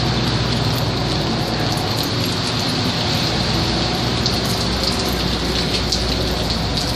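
Hailstorm: hailstones and rain pelting down in a dense, steady patter full of sharp little ticks, over a low steady hum.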